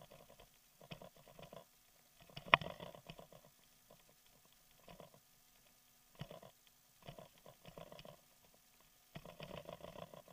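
Bicycle rattling and crunching over a rough dirt road, in irregular bursts of clicks and crackles as it hits bumps, with one sharp knock about two and a half seconds in.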